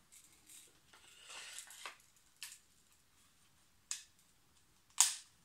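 Soft scraping hiss of a Japanese nata's edge shaving arm hair, about a second long, followed by three sharp clicks, the last near the end and the loudest.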